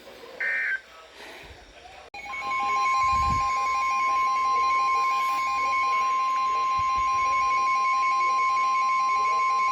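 Start of an Emergency Alert System weather alert on NOAA Weather Radio: the last short burst of the warbling SAME header data tones, then after about a second the steady 1050 Hz warning tone, with a rapid pulsing electronic beep running under it.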